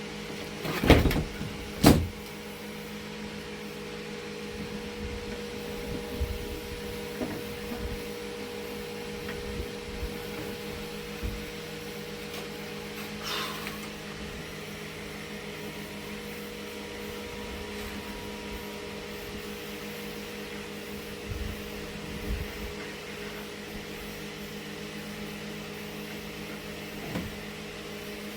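Steady low electrical hum with two loud knocks about one and two seconds in, then scattered light taps and clicks and a brief squeak midway, as panel parts and tools are handled.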